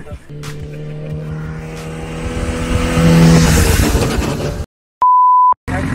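Sport motorcycle engine held at steady revs, growing louder as the bike comes through the corner and passes with a rush. Then the sound cuts out and a short, high, pure beep is heard, like an edited-in bleep.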